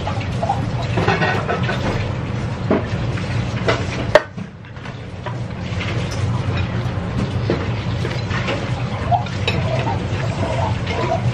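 Steady low hum of a restaurant room, with light taps and clinks of wooden chopsticks and a ceramic spoon against a ceramic ramen bowl, and one sharp click about four seconds in.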